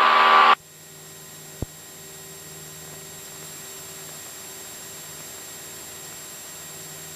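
The Cessna 172SP's four-cylinder engine in the climb, heard through the aircraft intercom. A loud rush of engine noise cuts off sharply about half a second in, leaving a steady low hum with a single click soon after.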